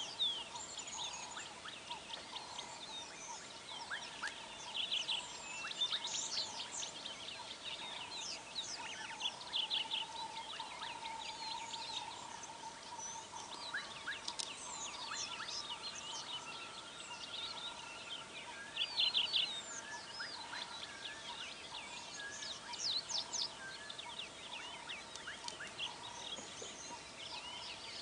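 Many birds calling at once: quick high chirps and trills, thickest in a few loud flurries, over a fainter wavering lower call.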